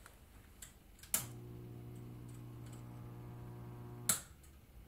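A sharp click, then a steady low electrical hum for about three seconds, cut off by another click, like a small mains-powered device switching on and off.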